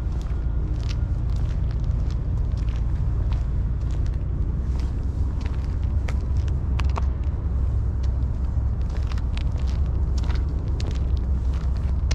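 A person's footsteps on grit-covered asphalt, walking along as light irregular ticks, over a steady low rumble.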